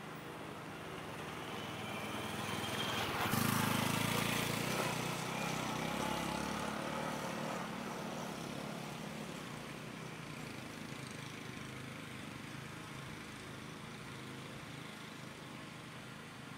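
Honda CT125 Hunter Cub's single-cylinder four-stroke engine passing by: it grows louder as the motorcycle approaches, is loudest about three and a half seconds in as it goes past, then slowly fades as it rides away.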